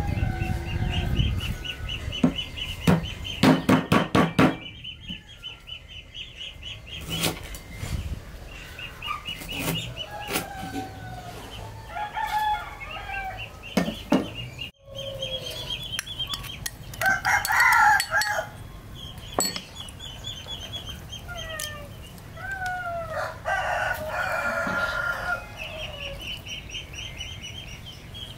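Chickens in a farmyard: a rooster crows, around the middle and again later on, over hen clucking and a fast, high repeating chirp. About three seconds in, a cleaver chops quickly on a wooden cutting board.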